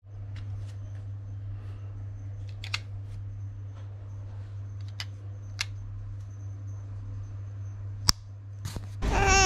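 Apple AirPods charging case being handled and opened: several sharp clicks from its lid snapping, the loudest about eight seconds in, over a steady low hum.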